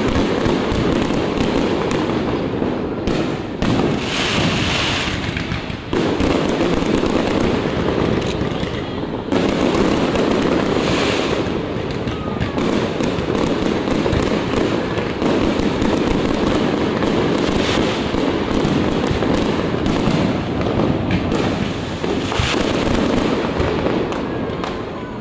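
Fireworks display: a dense, unbroken run of bangs and crackling, with a couple of brief hissing spells.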